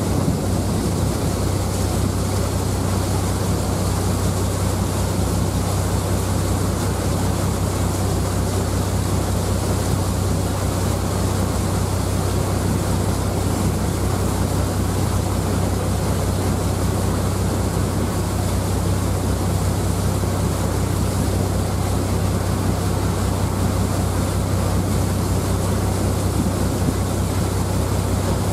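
JR Miyajima ferry's engine running with a steady low drone, under a constant rushing of wind and water.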